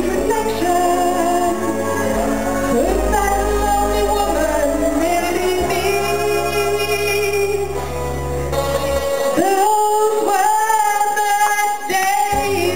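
A woman singing a pop song into a microphone over a backing track, with long held notes. About nine seconds in the bass drops out for a few seconds, leaving her voice almost alone.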